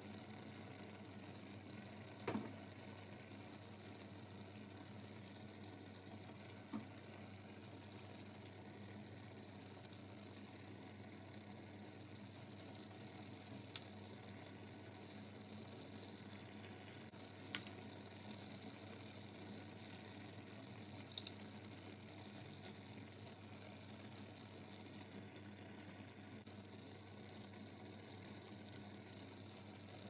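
Seafood paella simmering faintly in its pan, a low steady bubbling hiss. A few short clicks stand out here and there, typical of shells being set into the rice.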